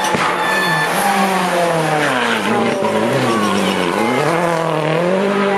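Rally car passing at speed on a loose gravel stage, its engine revving hard over a haze of tyre and gravel noise. The engine pitch falls and rises again twice as the driver lifts and shifts.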